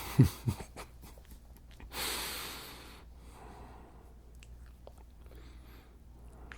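A man's short low voice sounds, then one long breath out about two seconds in, followed by faint soft rustling close to the microphone.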